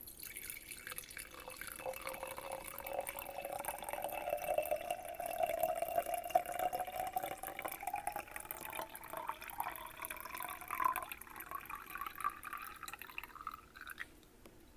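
Water poured steadily into a glass, splashing, with a ringing note that rises slowly in pitch as the glass fills. The pour stops a little before the end.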